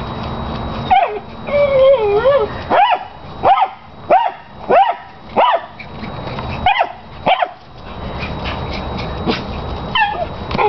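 A miniature Australian shepherd's piercing, high-pitched barks come in a quick string, about two-thirds of a second apart, with a wavering whine after the first bark and one more bark near the end. It is the excited, obsessive bark it gives over its big tennis ball.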